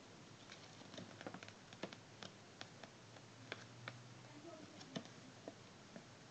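Faint, scattered clicks and light taps, a few a second at irregular spacing, from handling a card instruction sheet and small plastic toy parts close to the microphone.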